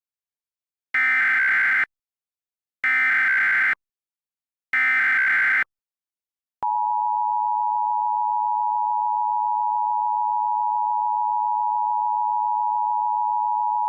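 Emergency Alert System tones: three short bursts of warbling digital SAME header data, each about a second long with a second's gap, then the long steady attention tone that begins about halfway through, signalling that a tornado warning message follows.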